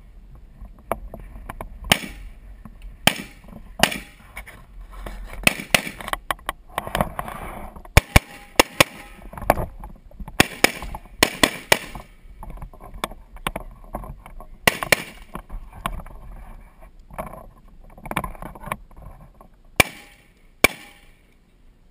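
Rifle shots fired one after another, about twenty sharp cracks with uneven gaps, some single and some in quick pairs.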